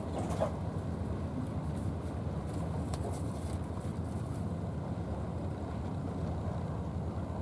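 Steady low rumble of a distant engine, with a brief rising sound about half a second in.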